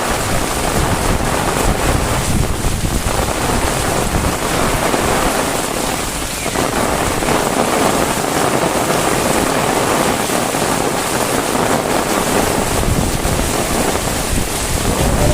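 Heavy rain falling steadily, a dense even hiss, with an uneven low rumble of wind buffeting the microphone at times.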